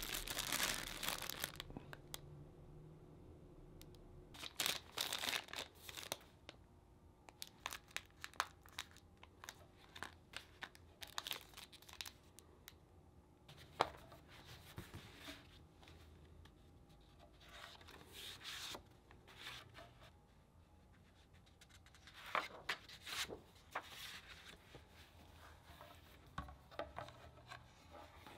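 Crinkling and rustling of paper-wrapped amenity packets being handled, then pages of a paper guide being turned, in short irregular bursts with quiet gaps between.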